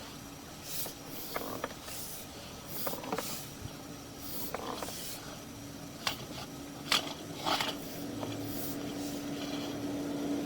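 Sewer inspection camera push cable being worked through the pipe: scattered creaks, clicks and scraping over a steady low hum.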